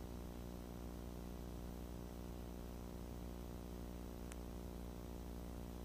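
Mooney M20J's four-cylinder Lycoming engine and propeller at full takeoff power during the takeoff roll: a steady, faint, low drone.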